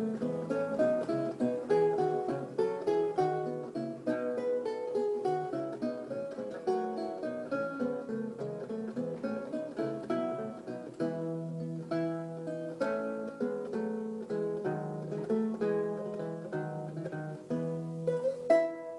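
Solo lute playing a steady run of plucked melody notes over a lower bass line.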